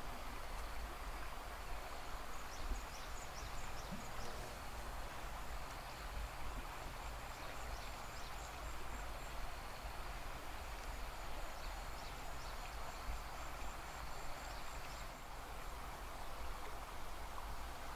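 Countryside ambience: a steady background hiss with a low rumble beneath it, and faint high-pitched chirping running through it.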